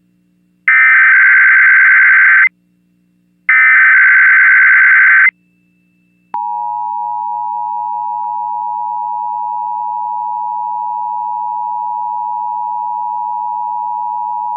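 Emergency Alert System test tones. Two short bursts of buzzing SAME digital header data, about a second apart, are followed about six seconds in by the steady two-tone EAS attention signal, two close pitches sounding together.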